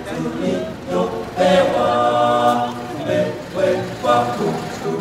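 Unaccompanied choir singing, several voices together; about a second and a half in, they hold one long chord for over a second.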